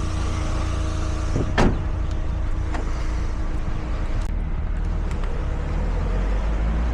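Steady low rumble of a motor vehicle or road traffic, with one sharp click about a second and a half in and a fainter one shortly after.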